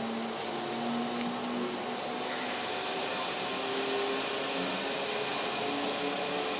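Handheld fiber laser welder running: a steady, unbroken hiss like air or gas flow, with faint shifting tones underneath.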